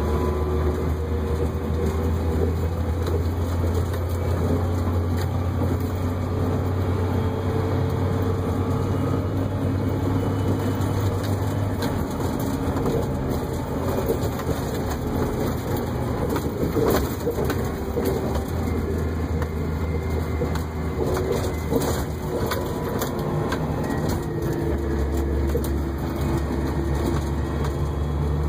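Off-road haul truck's diesel engine running steadily, heard from inside the cab on a rough dirt road, with rattles and knocks from the cab in the middle stretch. Its low drone eases off about twelve seconds in and picks up again near the end.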